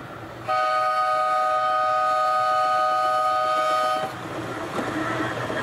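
Horn of a hi-rail ute running on the rails: one steady two-note blast about three and a half seconds long, starting about half a second in and cutting off sharply. After it, the vehicle's engine and its rail wheels on the track grow louder as it approaches.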